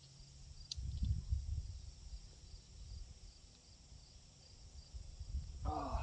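Steady high insect chorus outdoors, with a low rumbling noise on the microphone for a couple of seconds from about a second in and again near the end.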